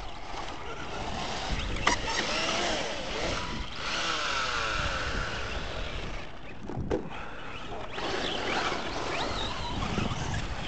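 Electric RC trucks driving on dirt: motor and gear whine rising and falling in pitch with the throttle, with a sharp knock about seven seconds in.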